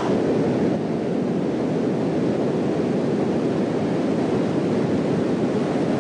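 Steady rushing noise of a river flowing over rocks.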